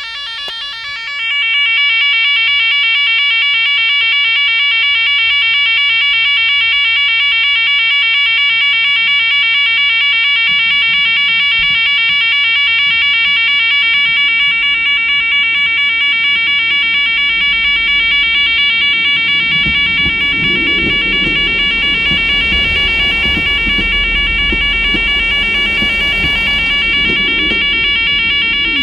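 Railway level crossing yodel alarm warbling continuously, jumping louder about a second in. From about two-thirds of the way through, a diesel multiple unit rumbles over the crossing, its engine and wheel noise loudest a few seconds before the end.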